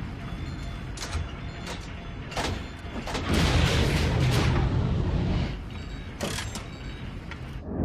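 Film sound effects of a spaceship plunging through a planet's atmosphere: metallic clanks and rattles over a low rumble. The rumble swells loud a little over three seconds in and eases off a couple of seconds later.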